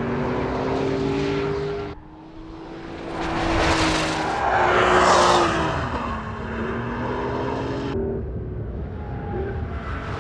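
Porsche 911 Carrera 4 GTS hybrid's 3.6-litre flat-six engine driven hard on track, its note rising and falling with the revs. The sound drops away and then swells to its loudest about four to five seconds in, and it jumps abruptly at about two and eight seconds in.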